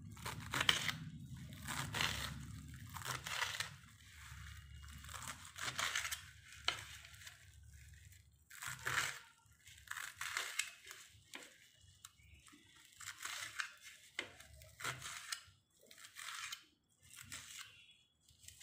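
Scissors snipping through amaranth (thotakura) leaves and stems, one crisp crunchy cut about every second.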